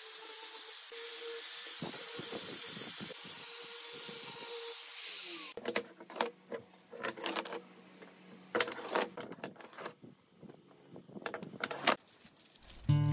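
Angle grinder with an abrasive disc grinding the edge of a wooden pallet block: a steady hiss over the motor's whine, which cuts off suddenly about five and a half seconds in. After that come scattered knocks and clicks of wooden blocks being handled on the bench.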